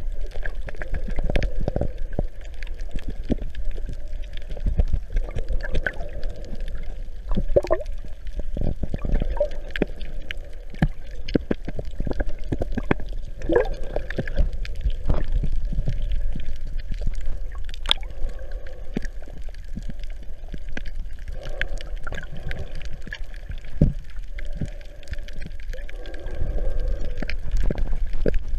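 Muffled underwater sound picked up by a GoPro in its waterproof housing: water gurgling and sloshing over a steady low rumble, with many scattered clicks and knocks.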